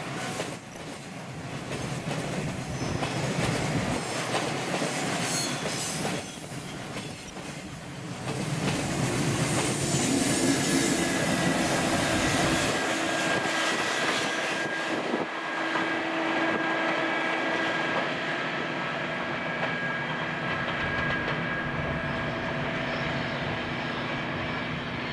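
Loaded container freight train rolling past through a curve on a climbing grade: steady rumble of wagon wheels with rhythmic clacking over rail joints and a few louder clanks in the first several seconds. From about halfway, steady whining squeal tones run under the rumble as the tail of the train, pushed by a banking electric locomotive, comes through the curve.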